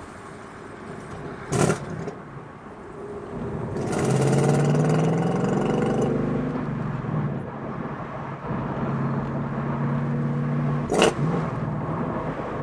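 Ford Mustang GT's Coyote V8 during a manual downshift from fourth with a rev match: the engine rises in pitch for about two seconds, drops back, then runs steadily. Two sharp knocks are heard, one about a second and a half in and one near the end.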